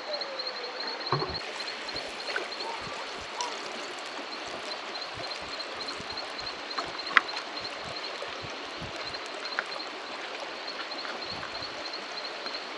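Steady rush of running water from the stream by the waterfall, with a high, evenly pulsing chirp above it and scattered small clicks, the sharpest about seven seconds in.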